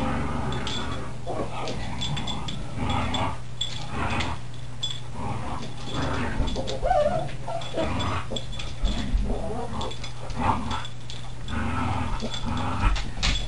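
Siberian husky puppy play-growling and whining over and over while wrestling with an adult husky, over a steady low hum.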